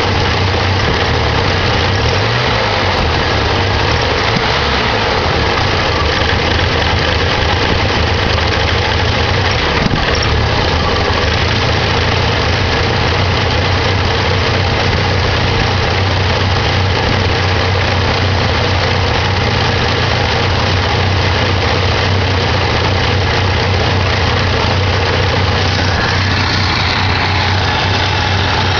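1987 Ford Ranger's 2.3-litre four-cylinder engine idling roughly and steadily; the owner thinks it probably needs its carburetor rebuilt or tuned.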